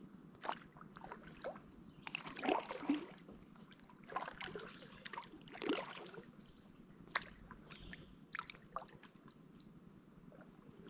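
Kayak paddle dipping into shallow river water: faint, irregular splashes and drips from the blade, a few strokes close together about two to three seconds in and again around six seconds.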